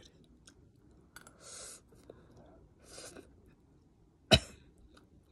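Close-up mouth sounds of a person eating noodle soup: two short airy slurps or breaths about a second and a half apart, then one sudden sharp burst near the end, the loudest sound.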